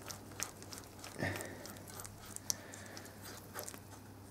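Faint scattered clicks and light knocks of tools and metal parts being handled, one knock a little louder about a second in, over a low steady hum.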